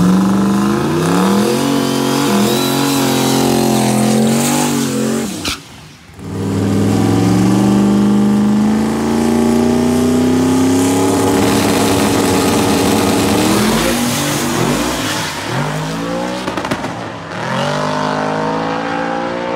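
Turbocharged LS V8 engines in Chevrolet pickup drag trucks running at full throttle, engine pitch climbing. The sound breaks off suddenly about six seconds in. A second truck's engine then climbs hard in pitch, dropping back briefly at gear changes.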